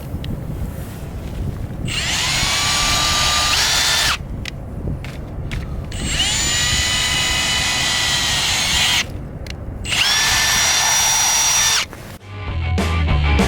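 Power drill running in three bursts of two to three seconds each, its whine sliding into a steady pitch as each burst starts. Music comes in near the end.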